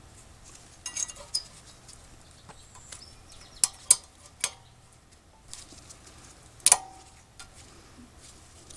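Thin steel brake pad retaining clips clicking and snapping into a rear caliper support bracket. About half a dozen sharp metallic clicks, spread out, the loudest a double click about two-thirds of the way through with a short ring.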